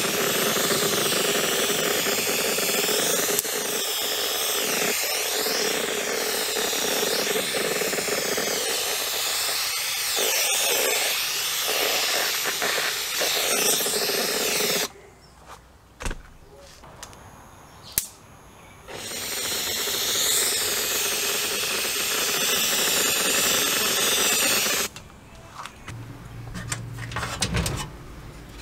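Spray paint hissing from a nozzle in a long pass of about fifteen seconds onto a sheet-metal engine blower housing. After a short break with a couple of clicks comes a second pass of about five seconds. Near the end there is a low hum with some clatter.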